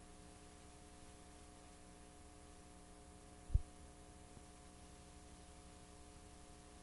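Faint, steady electrical hum, a stack of even tones, on the audio of a blank stretch of analog videotape. One brief low thump about three and a half seconds in.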